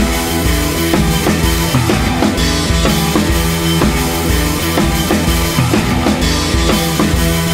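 Background music with a steady drum beat and sustained instrumental tones.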